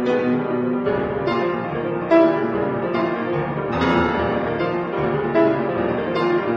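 Solo piano music: a classical-style piece played as a continuous stream of notes.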